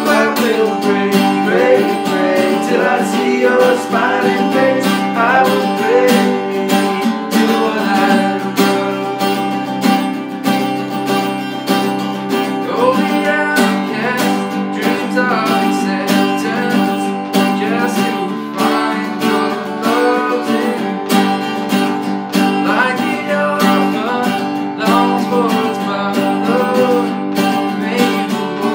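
Acoustic guitars strumming and picking a slow country song, with a man's voice singing over them.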